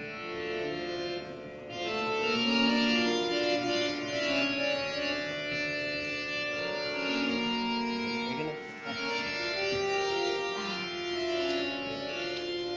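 Harmonium playing a lehra melody in sustained, reedy notes that change pitch every half second or so: the repeating accompaniment line for a pakhawaj solo in chautaal, a twelve-beat cycle.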